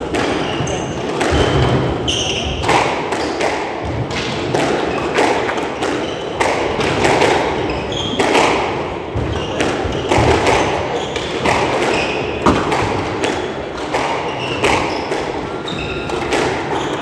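Squash rally: the ball is struck by rackets and thuds off the court walls in a run of sharp knocks, with brief sneaker squeaks on the wooden court floor in between.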